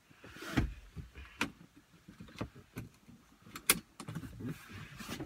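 Car seatbelt being handled: rustling of the belt webbing with several clicks and knocks, the sharpest a bit over three and a half seconds in.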